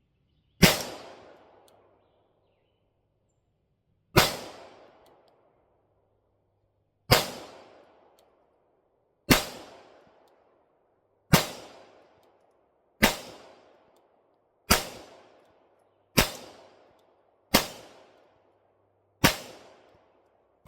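Pistol fired one deliberate shot at a time in a slow trigger-control drill: about ten single shots, each followed by an echo dying away over about a second. The shots come three to four seconds apart at first and quicken to about a second and a half apart.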